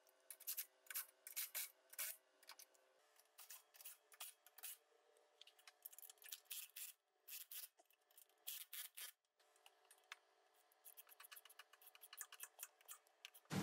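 Faint, irregular metallic clicking and scraping of tools tightening the bolts and nuts of a receiver hitch, in short clusters of clicks.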